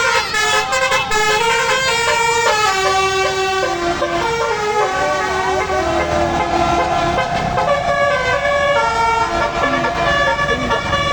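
Basuri 'telolet' multi-trumpet musical air horn on a bus playing a tune: several held notes sounding together that change pitch in steps, over the low rumble of the engine.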